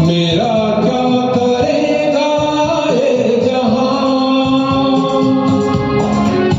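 Hindi film-song karaoke: a singer holds and glides through sustained notes over a recorded backing track.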